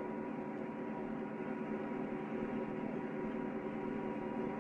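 Steady electrical hum over hiss, several unchanging tones held together, with the dull, narrow sound of an old film soundtrack.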